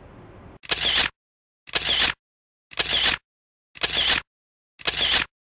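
An edited-in camera shutter sound effect, repeated five times about once a second, each a short double click, with dead silence between them.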